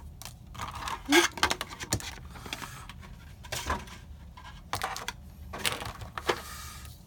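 Cardboard and plastic packaging being handled and pulled apart as contents are taken out of a trading-card gift box: irregular rustling and light clicks and knocks.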